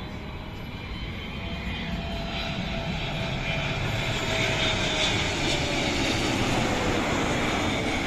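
Jet engines of a Biman Bangladesh Boeing 777 on final approach, growing steadily louder as the airliner comes in low and close. A whining tone in the engine noise slowly falls in pitch as it passes.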